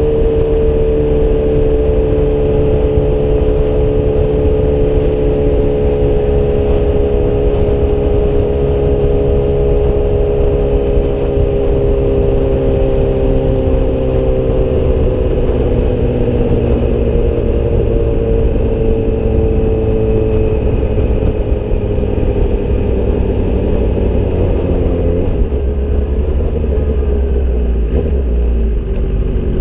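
Sportbike engine through an aftermarket SC-Project exhaust, holding a steady cruising note whose pitch sinks slowly as the bike eases off, then drops sharply about 25 seconds in. Heavy wind rumble on the microphone.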